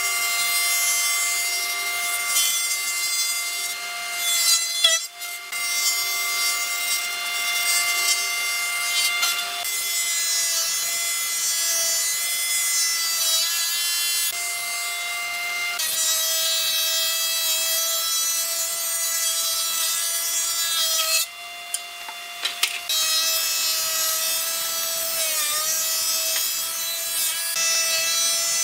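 Electric power tool running with a steady high whine while working wood. The whine cuts out briefly about 5 seconds in and again for a couple of seconds past the 20-second mark, and its pitch sags for a moment near the end as it takes load.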